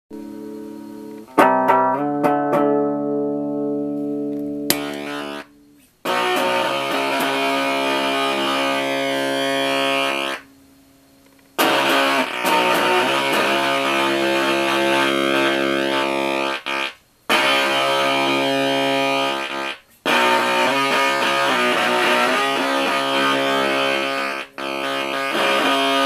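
Electric guitar played through a Fat Bird fuzz pedal, a Fuzz Factory–style circuit. It opens with a chord left to ring out plainly, then from about six seconds in plays thick fuzzed riffs, with a few short stops.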